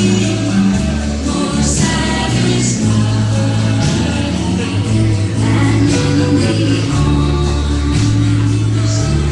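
Live gospel music: voices singing over a bass line that moves in held notes, with a tambourine shaking.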